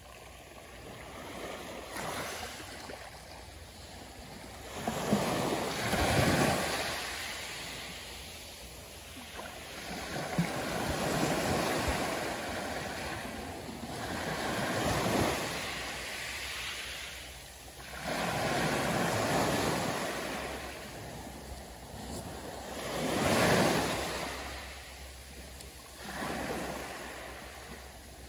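Small waves of a calm sea lapping and washing up onto the beach, a fresh wash about every four to five seconds, each one swelling and then fading.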